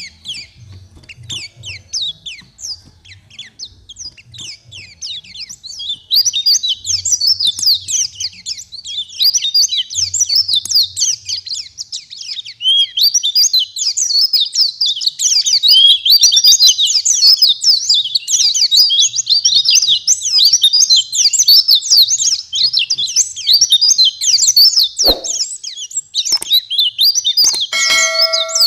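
White-eyes (pleci) singing a rapid, high twittering song of quick chirps and trills, sparse at first and then denser and louder from about six seconds in. A short beep-like tone sounds near the end.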